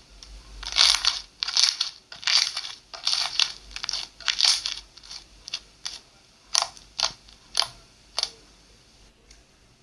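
Slime being pressed and squeezed by hand: a run of about six short noisy squelches in the first half, then four shorter, sharper pops spaced about half a second apart.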